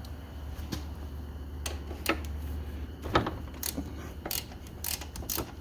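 A hand ratchet clicking in short, irregular strokes as a bolt is backed out of a 1988 Honda Goldwing's rear wheel assembly, over a steady low hum.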